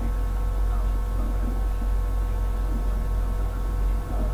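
Steady low electrical hum with a faint buzz of higher steady tones over it; no speech.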